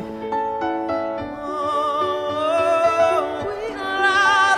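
Background music with slow, held notes and a wavering high melody line, growing louder toward the end.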